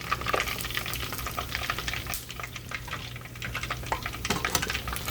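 Chicken drumsticks frying in hot oil, a steady sizzle full of small rapid crackles and pops, with a low hum underneath.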